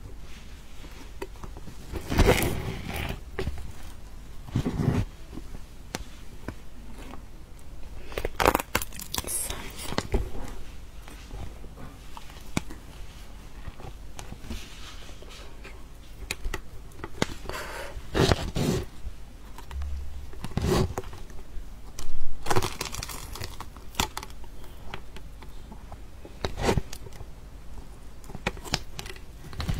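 Durian being handled and eaten close to the microphone: separate crinkling, scraping and tearing sounds, with bites, at irregular intervals a few seconds apart.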